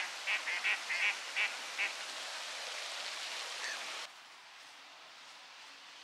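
Duck quacking in a quick run of about eight short calls, over the steady hiss of a pond fountain. The sound drops suddenly to a quieter outdoor hiss about four seconds in.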